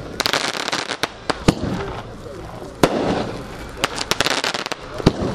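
Multi-shot aerial fireworks firing: sharp bangs of small shells bursting at irregular intervals, some in quick clusters, with crackling between the reports.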